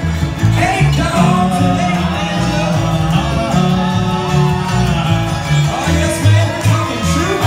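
Old-time string band playing live: upright bass, acoustic guitar, fiddle and banjo, with the fiddle carrying a sliding melody over a steady bass line.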